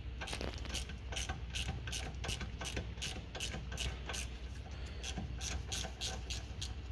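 Ratchet with a T30 Torx bit clicking in quick, even strokes, about three clicks a second, as it winds out the brake disc's retaining screw.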